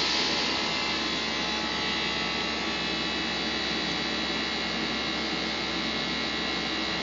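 Steady machine hum and fan noise with several constant high tones, unchanging throughout.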